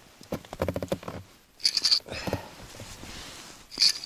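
Rubber boots crunching and squeaking on cold, packed snow: a few separate steps.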